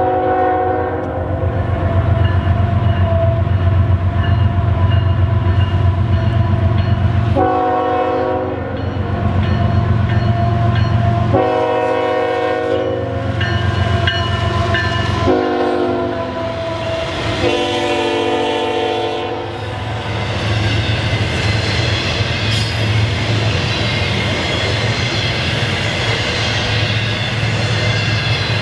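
Norfolk Southern intermodal freight, led by the Monongahela heritage diesel locomotive, approaching and passing with its diesel engines rumbling. The locomotive's air horn sounds a series of blasts, a first one ending just as the sound begins, then four more of one to two seconds each. Near the end the steady rushing clatter of the container and trailer cars rolling by takes over.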